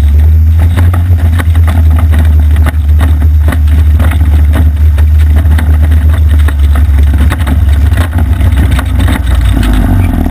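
Off-road go-kart engine running loudly as the kart drives over rough, snowy ground, with frequent clicks and knocks from the ride. The engine eases off near the end.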